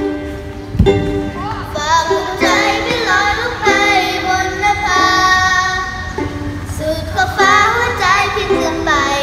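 A child singing a Thai pop song, with ukulele chords strummed throughout. The voice comes in about one and a half seconds in. Just before that there is a single low thump.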